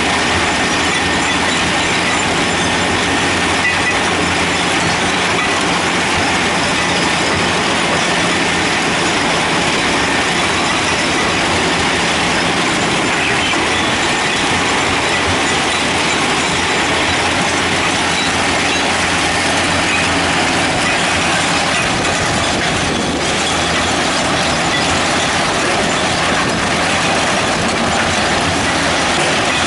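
Sandvik tracked mobile screening plant working crushed limestone: a steady, loud, dense clatter of diesel power pack, vibrating screen and stone pouring off its conveyors onto stockpiles.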